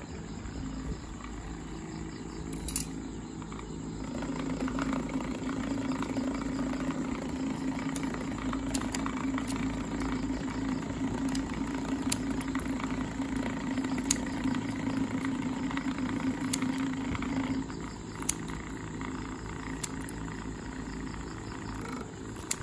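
Scissors snipping the thin plastic blades of a propeller cut from a bottle, a sharp click every second or two. Under it runs a steady low hum that starts about four seconds in and stops well before the end.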